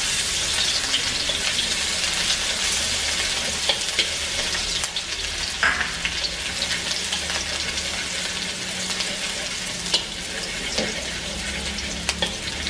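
Chopped shallots sizzling and crackling in hot oil in a wok as they fry until fragrant, with a few light clicks of chopsticks stirring against the wok.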